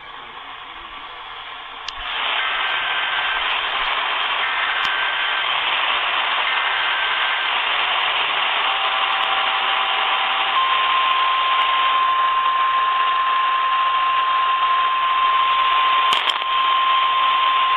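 Emergency Alert System activation heard through a radio receiver over heavy static hiss. Three short data bursts come about two seconds apart, then a long steady alert tone starts about ten seconds in.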